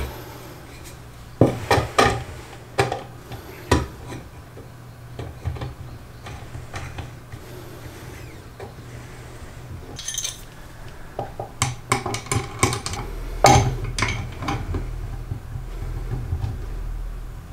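A square wooden blank knocks and scrapes against a plywood jig as it is fitted between the end bolts, with a few sharp knocks early on. Later comes a run of metal clicks and clinks from a wrench tightening the bolt that holds the blank.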